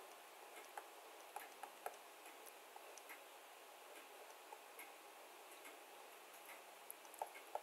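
Faint, irregular light ticks of a stylus tapping on a drawing tablet while writing, over near-silent room tone, with a few sharper ticks near the end.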